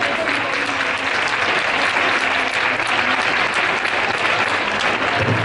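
Audience applauding steadily, dense clapping from a crowd.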